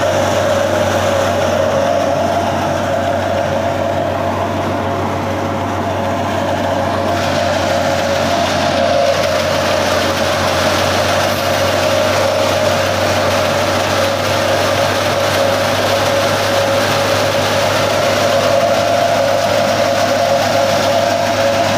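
Belt-driven wheat thresher running steadily, a loud, even mechanical drone with a constant hum, loud enough to drown out a voice, while threshed grain pours from its outlet chute.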